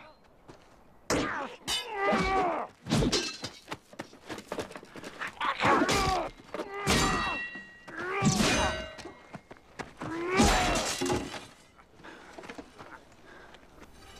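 Sword-fight sound effects: a quick run of heavy blade strikes, some ringing like metal clangs, with the fighters' grunts and shouts between them. It dies down to quieter scuffling near the end.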